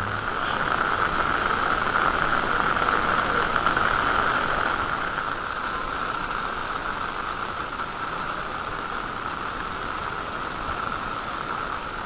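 Steady hiss of outdoor ambient noise with no distinct events, a little louder over the first few seconds before settling.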